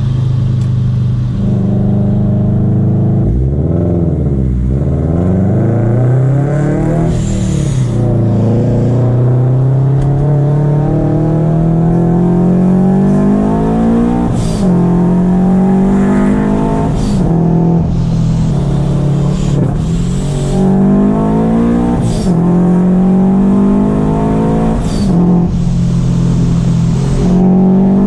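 Supercharged Scion FR-S flat-four engine and exhaust under way, its revs climbing and dropping back again and again as the car accelerates and shifts.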